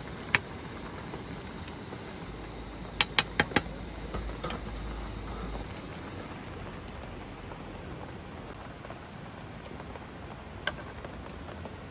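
Light rain pattering steadily at a campsite. There are a few sharp clicks over it: one early, four in quick succession about three seconds in, and one near the end.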